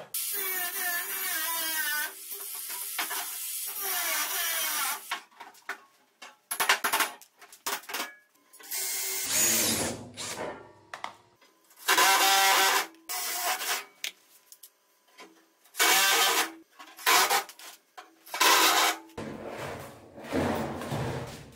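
Cordless drill running in a series of short bursts, its motor whine rising and falling with the trigger, as it bores through a wooden rim strip into a thin aluminium boat hull.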